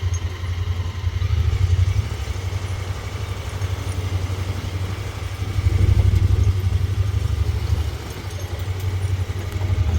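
Low, steady engine rumble, swelling and easing a little, with nothing else standing out.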